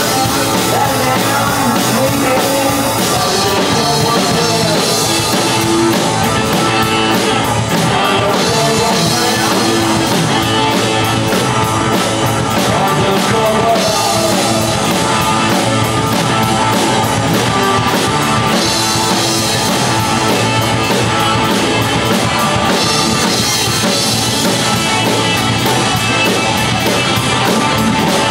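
Live rock band playing loudly: electric guitars, bass guitar and drum kit, with some vocals.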